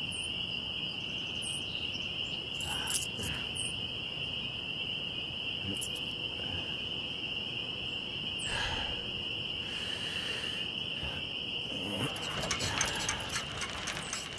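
Crickets chirping in a steady, continuous high trill as background ambience. A few soft short sounds occur, and there is a rapid faint clicking near the end.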